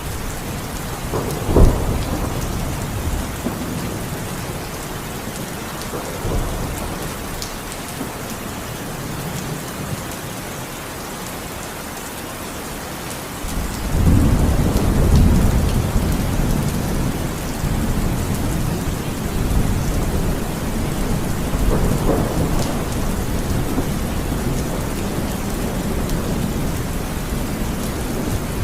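Heavy rain falling steadily, with thunder over it. There is a sharp crack about a second and a half in, a long low rumble that starts about halfway through, and another smaller rumble a few seconds later.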